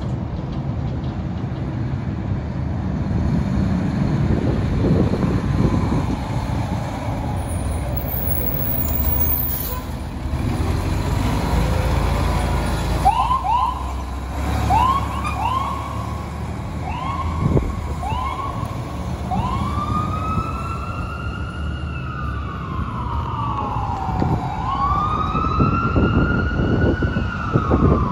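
Fire engine's engine running low as the truck pulls out, then about halfway through a string of short rising siren chirps, followed by a wailing siren that sweeps slowly up and down as the engine drives off on an emergency run.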